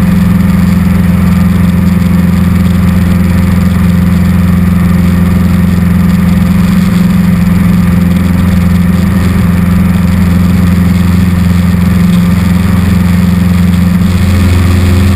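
Cessna 150's four-cylinder Continental O-200 engine and propeller running steadily in flight, heard loud from inside the cockpit as an even drone.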